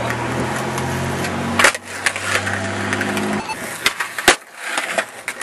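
Skateboard wheels rolling with a steady hum and a sharp clack about one and a half seconds in; the rolling stops a little past halfway, followed by a few sharp board knocks.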